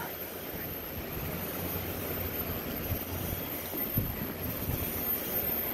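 Steady rushing noise of wind on the microphone and sea surf, with a few faint thumps about four seconds in.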